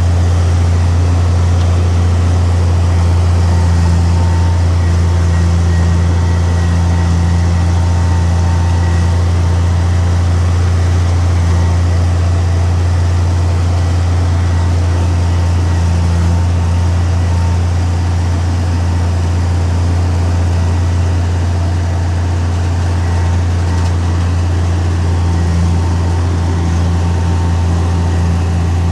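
Heavy diesel earthmoving machinery running, a loud, steady low engine drone that holds without break.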